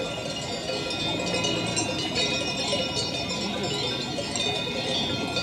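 Bells on a grazing flock of sheep and goats clinking and ringing continuously, many small bells overlapping.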